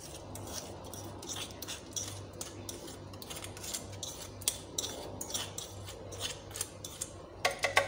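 Spoon scraping and clicking against dishware as soaked rice is added to a plastic blender jar: a run of small irregular clicks and scrapes, bunched more closely near the end.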